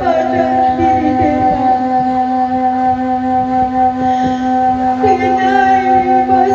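Background music: one long note held steady, with a wavering melody line coming in about five seconds in.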